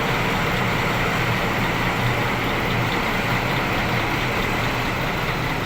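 Heavy dump truck's diesel engine running steadily, with a continuous hum and road noise.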